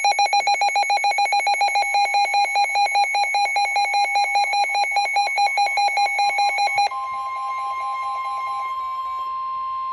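Weather radio warning alert: a rapid pulsing electronic alarm beep for about seven seconds, then the steady 1050 Hz NOAA Weather Radio warning alarm tone, signalling that a warning is about to be read.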